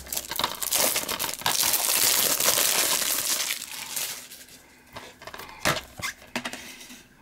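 Plastic wrapping on a DVD case crinkling as it is torn and peeled off, for about four seconds, then a few sharp clicks as the plastic case is snapped open.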